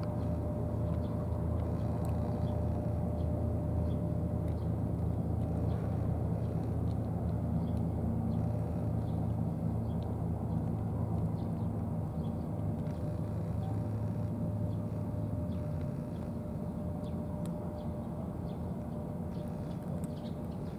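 A steady low engine drone with a constant hum, easing slightly in the second half. Faint ticks over it: cats crunching dry kibble.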